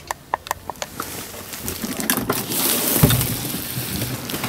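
Protective plastic bubble wrap over a truck-cab fridge lid being handled, rustling and crinkling. There are a few sharp clicks in the first second and a dull thump about three seconds in.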